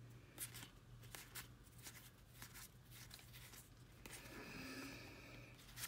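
Faint handling of trading cards: soft clicks and rustles as cards are flipped and slid from hand to hand, with a longer rustle near the end, over a low steady hum.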